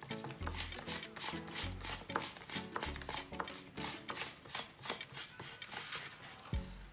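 Repeated scraping strokes, about three or four a second, as the skin of a cactus is scraped to take off the white bits without peeling it. Background music with a bass line plays under it.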